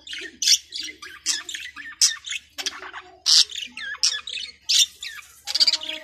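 Budgerigar chattering: a fast, unbroken string of short chirps and squawks, several a second, with louder sharp squawks scattered through.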